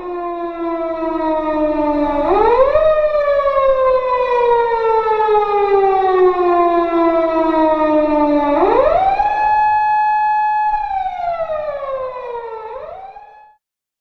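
Japanese police patrol car siren wailing close by on an emergency run: its pitch sinks slowly over several seconds, then sweeps quickly back up, three times, and the siren cuts off abruptly near the end.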